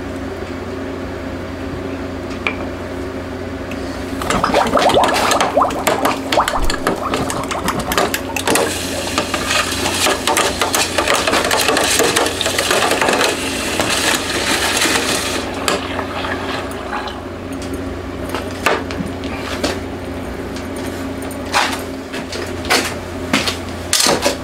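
Red-hot case-hardened steel cam quenched in a bucket of liquid: a loud sizzling, bubbling rush starts about four seconds in and dies away over about ten seconds, under a steady hum. A few metal clinks near the end.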